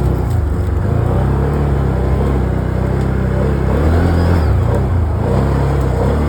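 Vehicle engine running under load through deep snow, its pitch stepping up and down several times as the throttle changes.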